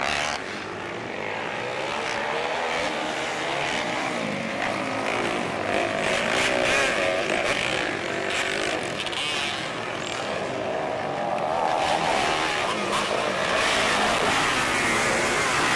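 Several racing ATV engines revving up and down as the quads run a dirt track, their pitch rising and falling.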